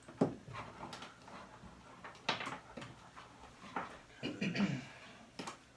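Handling sounds from the opened iMac: a few scattered knocks and clicks as the loose display panel and the machine are moved and set in place.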